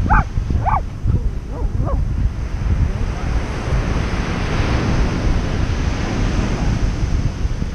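Ocean surf: a wave breaks and washes up the beach, swelling to a peak about halfway through and then fading, over a steady low rumble of wind on the microphone. In the first two seconds, a few short, high calls from an animal fade out.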